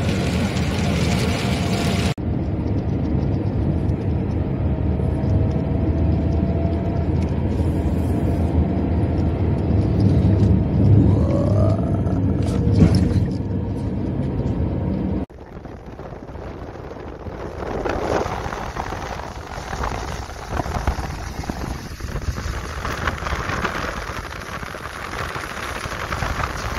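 Vehicle running on the road: a loud, steady low rumble of engine and road noise that cuts off suddenly about halfway through. A quieter, uneven noise follows.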